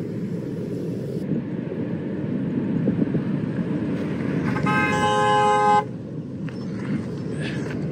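A car horn sounds once, a single steady note held for about a second, a little over halfway through, over a steady low rumble.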